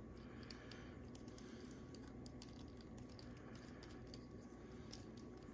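Faint, irregular small clicks and taps of a plastic action figure being handled, its torso joints moved through an ab crunch and side-to-side twist.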